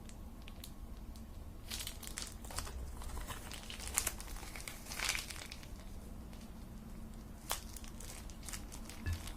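Crinkling and crackling handling noises with scattered sharp clicks, thickest for a few seconds in the middle, then a few isolated clicks.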